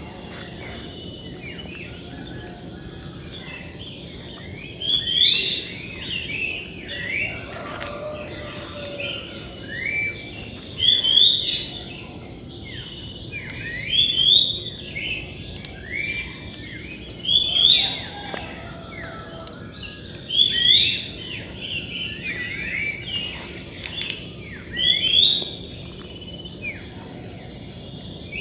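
Wild birds singing in short chirping phrases that come in bursts every few seconds, over a steady high-pitched drone of insects.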